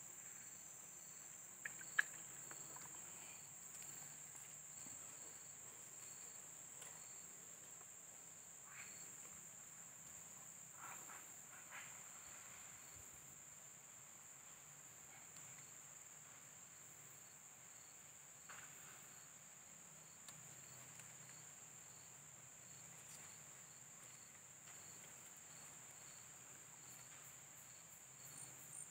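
Faint, steady high-pitched drone of insects, with a sharp click about two seconds in and a few soft rustles.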